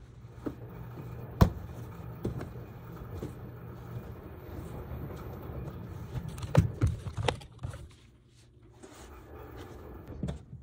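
Steady low machine hum with a few sharp knocks and clatters of handling, one loud click early and a cluster of knocks later; the hum drops away near the end.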